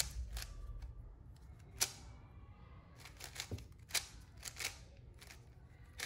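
Plastic 3x3 speed cube with superglued (bandaged) pieces, turned by hand during a solve: its layers click and clack in short, irregular turns. The loudest click comes a little under two seconds in.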